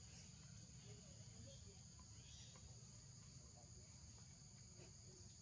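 Faint, steady high-pitched drone of insects chirring, over a low background rumble.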